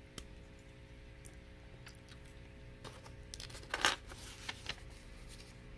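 Hard plastic Lego Hero Factory pieces clicking and knocking softly as they are handled and fitted together, with a short burst of clicks and rustling about four seconds in, over a faint steady hum.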